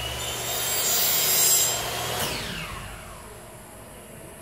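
A cord dragged through a screw hook on a wooden arm, a rasping rub that builds for about a second and a half and then dies away, with a falling squeal about two seconds in. The maker blames the hook for too much friction and wants a wire loop instead.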